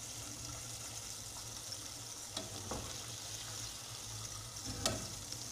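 Floured beef liver steaks sizzling steadily as they sear in hot oil in a pot. A couple of faint clicks come about two and a half seconds in, and one sharper tap near the end.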